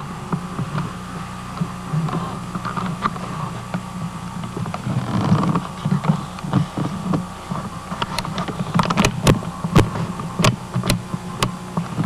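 A steady low hum, with a quick run of sharp clicks and knocks in the last four seconds.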